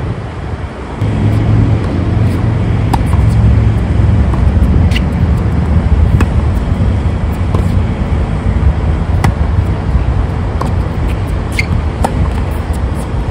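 Tennis ball knocking off racquets and bouncing on a hard court in a rally, sharp clicks about every second or so. Under them runs a steady low rumble, much like passing traffic, which sets in about a second in and is the loudest sound.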